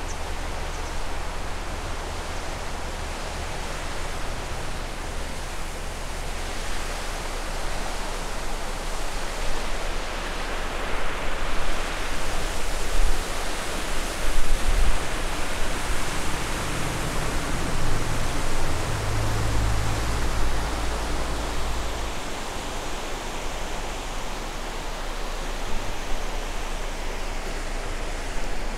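River water rushing over a low weir, a steady full rushing, with some low rumbling bumps about halfway through.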